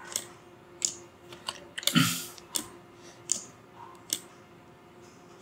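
Computer mouse clicking: a series of separate single clicks, roughly one a second, with one louder click about two seconds in, as control points are picked one by one.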